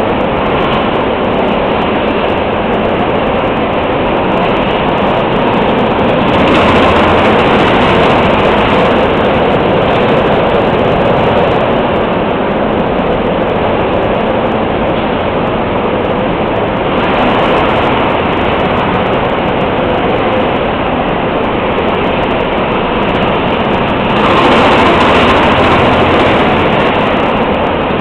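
Go-kart engines running on an indoor track: a loud, steady din that swells three times as karts pass close by.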